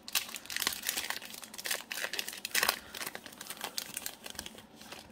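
Foil wrapper of a Panini Select basketball card pack crinkling irregularly in the hands as it is torn open, easing off near the end.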